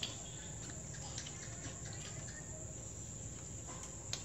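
Crickets and other night insects chirping faintly over steady low background noise, with a few faint clicks.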